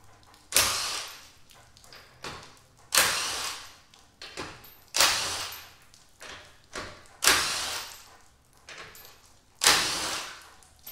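Cordless impact wrench with a 19 mm socket running in five short bursts about two seconds apart, spinning out a wheel's five lug bolts, with lighter knocks between bursts.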